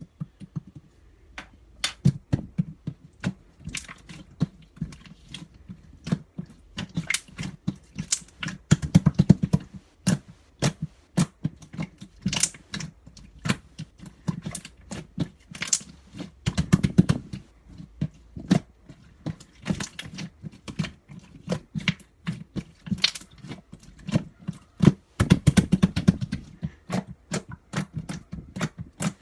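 Rapid, irregular close-up clicking and tapping, bunching into heavier flurries several times.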